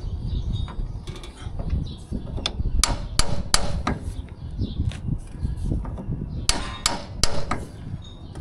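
Hammer striking steel parts of a corn head during a repair, in two quick runs of ringing metal blows: about four strikes around three seconds in and three more around six and a half seconds in.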